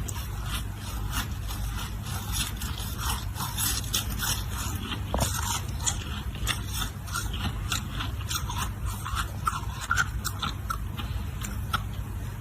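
A person biting and chewing ice, crisp crunches and cracks coming several times a second in an irregular run.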